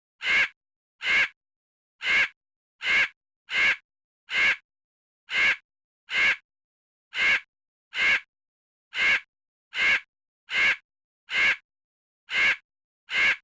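A frog croak sound effect: short rasping croaks, about sixteen of them, repeated at uneven gaps with dead silence between each.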